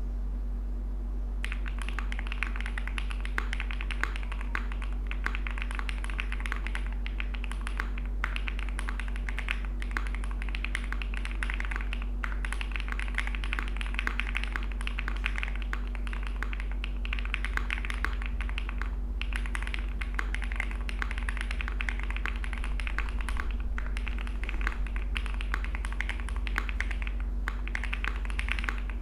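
Typing on a custom mechanical keyboard, an Owlabs x Mr. Suit with lubed Owlabs Tungsten switches on a POM plate, full foam and CRP Tulip keycaps. A dense stream of key clacks starts about a second and a half in and breaks off in short pauses every few seconds, over a steady low hum.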